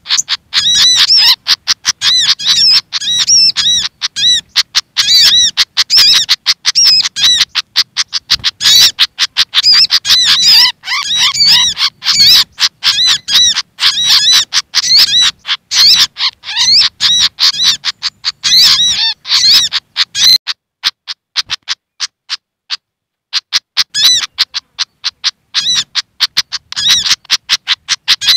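Agitated, rapid chattering of a Malaysian pied fantail (sikatan kipas) mixed with agitated sogon calls, played as a bird-trapping lure call. It is a dense run of sharp, high, quick notes that pauses briefly about two-thirds of the way through, then resumes.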